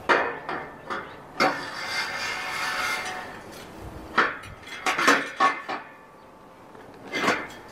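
Steel square tubing clanking and knocking as a length of tube is lowered into a steel frame and worked into place. A scraping slide comes a second or so in, then a quick run of sharp metal knocks around the middle and one more knock near the end.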